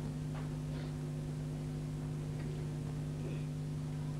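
Steady electrical hum made of a few fixed low tones on an old broadcast soundtrack, with a few faint, brief sounds on top.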